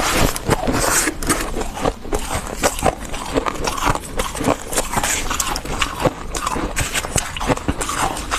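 Thick, fluffy freezer frost crunching in a dense, irregular run of close crackles and crunches.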